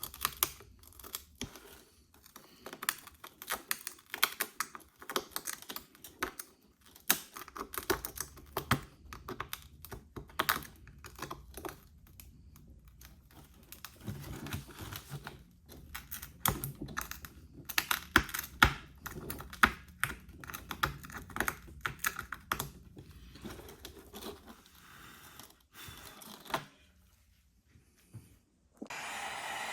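Irregular rapid clicking and tapping of small hand tools picking and cracking at an iPhone SE's glass back panel. Near the end the tapping stops and a steady blowing noise starts.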